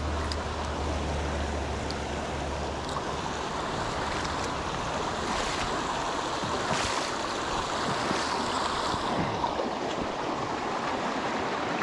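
Shallow mountain stream rushing and splashing over rocks in a riffle, a steady wash of water.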